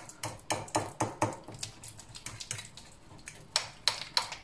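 Fork mashing a ripe banana on a plate: quick, irregular taps of the fork against the plate, about three to four a second.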